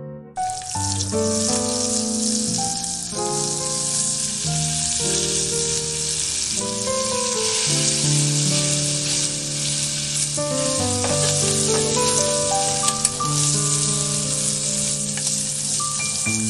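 Chicken drumettes sizzling steadily in hot oil in a saucepan, the sizzle starting suddenly just after the start. Gentle piano music plays underneath.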